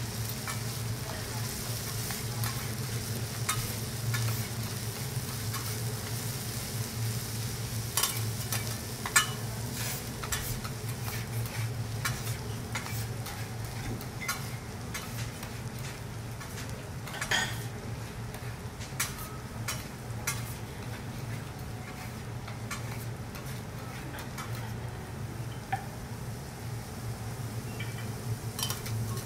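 Food sizzling on a teppanyaki griddle, with metal spatulas clicking and scraping against the hot plate every so often, over a steady low hum.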